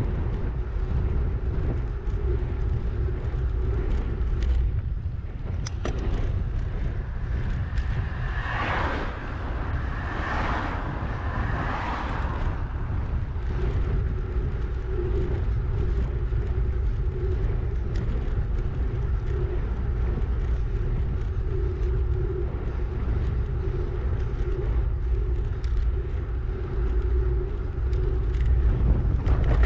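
Wind rumbling steadily on the microphone of a bicycle-mounted camera while riding at about 30 km/h.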